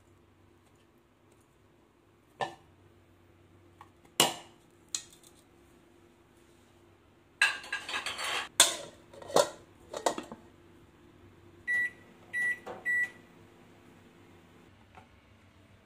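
Crockery and a bowl knocking and clattering at the kitchen sink, a few separate knocks and then a busy run of clatter. Near the end, three short beeps from a microwave's keypad as buttons are pressed to start a one-hour kitchen timer.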